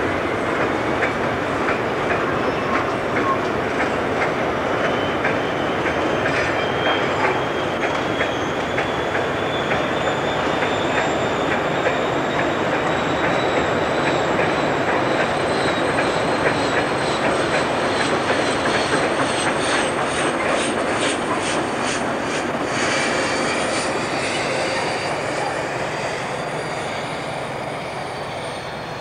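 A British Rail diesel locomotive hauling a train of hopper wagons runs past, with the rumble of the train and a high whine that climbs slowly in pitch. In the later part there is a run of quick regular clicks from the wheels over the rail joints. Near the end the sound fades and the whine drops in pitch as the train draws away.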